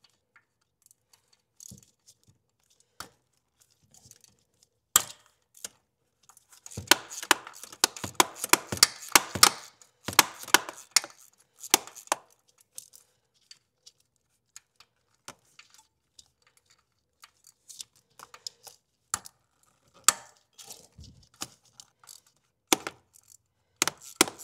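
Hand tools loosening the top bolts of the secondary air switching valves: scattered sharp metal clicks and clinks, with a few seconds of rapid ratchet clicking about seven seconds in.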